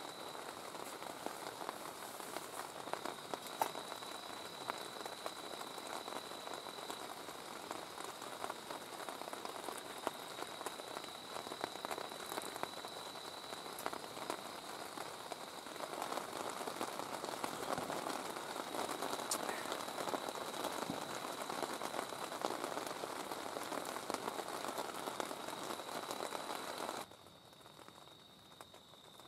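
Rain pattering on a tent and tarp, many close drops ticking through a steady hiss, with a faint steady high tone behind it. It grows louder about halfway through, then drops suddenly to a quieter hiss shortly before the end.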